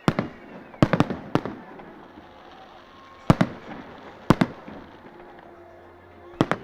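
New Year fireworks exploding: a string of sharp bangs at uneven intervals, some coming in quick pairs, with a faint crackling haze between them.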